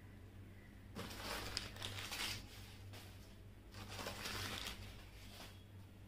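Newspaper packing and cardboard rustling and crinkling as the box is handled, in two bursts of about a second and a half each.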